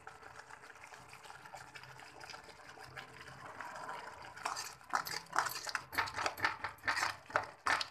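Slotted metal spatula stirring thick onion-tomato masala in a metal kadhai. The masala sizzles faintly at first; from about halfway the spatula scrapes and knocks against the pan in a run of quick, irregular strokes.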